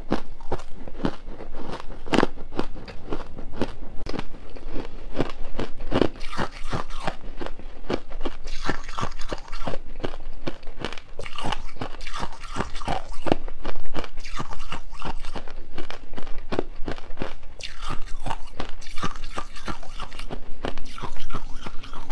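A person crunching and chewing mouthfuls of crushed frost ice: a dense run of quick, brittle crunches with a few louder bites.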